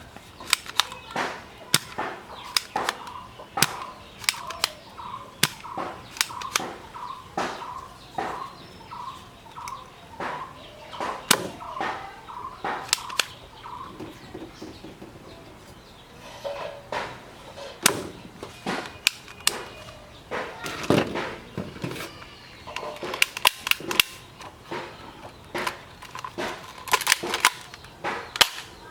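Toy foam-dart blasters firing: a long irregular string of sharp pops and clicks, several to a second, with short high chirps among them in the first half.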